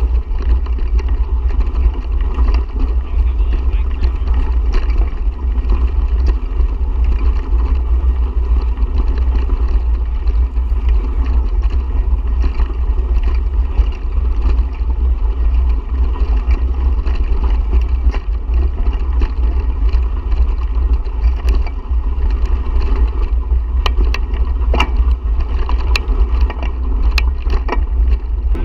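Wind buffeting the microphone of a camera riding along on a bicycle, with steady tyre and road noise from the trail and a few sharp rattles near the end.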